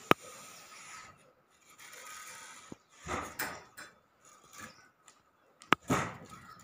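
Paper pages of a notebook rustling as they are turned and handled, in a few short swishes, with a sharp click just after the start and another about five and a half seconds in.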